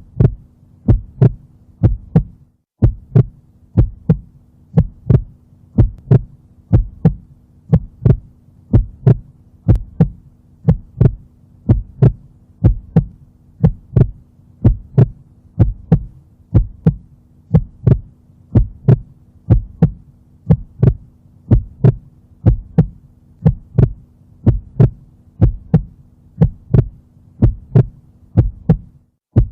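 Heartbeat heard through a stethoscope: steady paired lub-dub beats, about one a second, over a faint steady hum.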